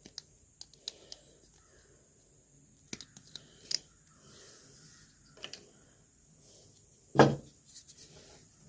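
Scattered small clicks and rustles of hands working on wiring and heat-shrink tubing, with one sharp knock about seven seconds in.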